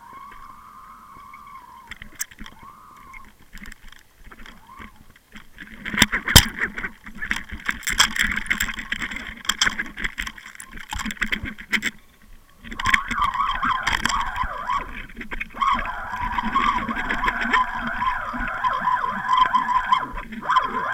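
Underwater sound picked up by a Water Wolf line-mounted camera: water rushing past the housing, with many sharp knocks and clicks and a wavering hum. It grows loud about six seconds in, dips briefly near the middle, then carries on.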